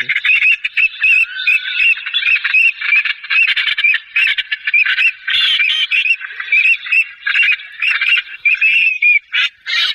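Dense, steady chorus of many birds calling and squawking over one another, all fairly high-pitched.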